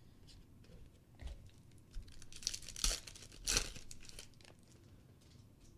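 Foil wrapper of a trading-card pack being torn open and crinkled, in two spells of tearing about two and three and a half seconds in.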